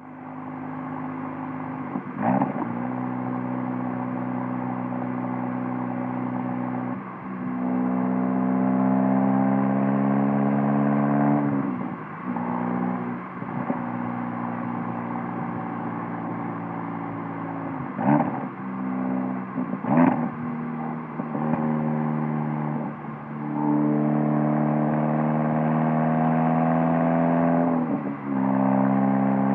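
Borla S-type valved catback exhaust on a 2017 VW Golf R's turbocharged 2.0-litre four-cylinder, heard from the rear bumper while driving. The note climbs under acceleration and drops back at each of several manual gear changes, with a few short pops.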